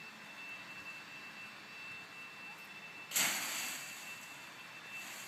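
A child landing in a pile of dry fallen leaves about three seconds in: a sudden loud crunch and rustle of leaves that fades over about a second, after a few seconds of faint steady hiss.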